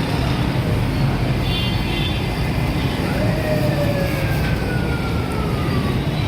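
Busy street traffic with a steady low engine rumble. About halfway through, a siren-like tone glides slowly downward for about three seconds.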